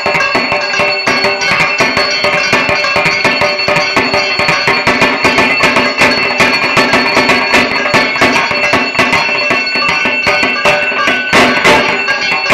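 Dhak, the Bengali barrel drum, beaten in a fast, dense rhythm with a steady high ringing held over the strokes, getting louder near the end.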